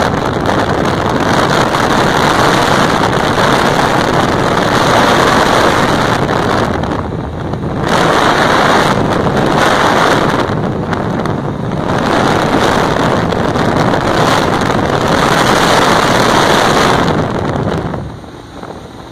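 Wind rushing over the microphone on a moving boat, a loud steady rush that swells and dips every second or two and drops lower near the end.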